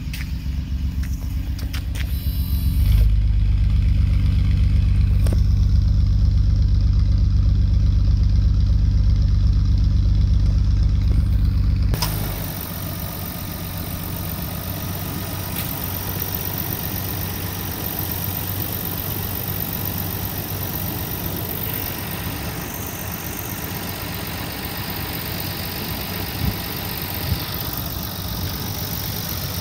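Nissan Skyline GT-R (R33)'s RB26DETT twin-turbo straight-six idling steadily. First comes a deep exhaust note at the tailpipes, growing louder about three seconds in. From about twelve seconds in it gives way to the lighter, busier mechanical and intake sound of the open engine bay.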